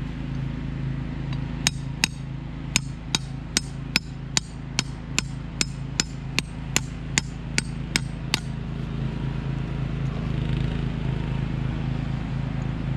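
A hammer driving a steel chainsaw stump vise into the end grain of a log: about seventeen sharp metal-on-metal blows, a little over two a second, stopping about eight and a half seconds in.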